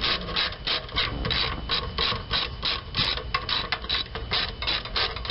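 A hand ratchet clicking in quick, even strokes, about four clicks a second, as it backs out the 8 mm hex-head screws around a fuel pump assembly's mounting plate.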